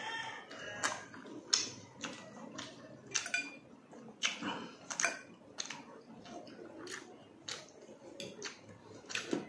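Close-up eating sounds: wet chewing and lip smacks of a hand-fed mouthful of stewed tuna jaw and rice, with many short mouth clicks at irregular intervals.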